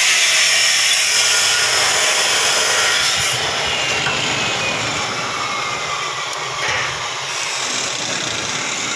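Steady, loud machine noise, a continuous hiss-like whir with no separate knocks, softening slightly about three seconds in.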